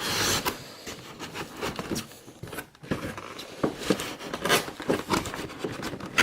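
A cardboard box and its packaging being handled as the contents are pulled out, with a scrape at the start and then scattered knocks and clicks as it sticks.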